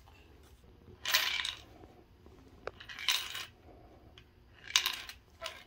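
Coins sliding and clinking inside a wooden piggy bank with an acrylic face as it is handled. There are three short rattling rushes, about one, three and five seconds in, and a single bright ting between the first two.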